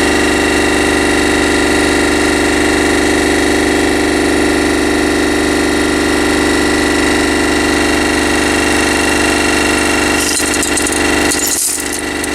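Homemade vibrating tumbler, driven by a washing-machine motor run on DC, running steadily with a constant hum and buzz. About ten seconds in, a brief rattling noise joins it.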